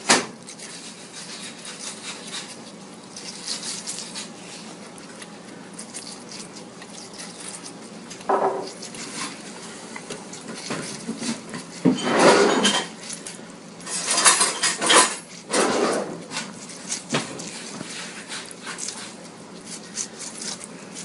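An animal calling in a few short, separate bursts, the loudest about halfway through, over a background of light clicks and knocks.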